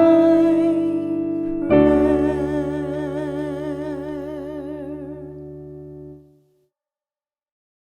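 Slow keyboard music on an electric piano: a held note, then a closing chord struck about two seconds in, its tones wavering with a gentle tremolo as it fades away and ends about six seconds in.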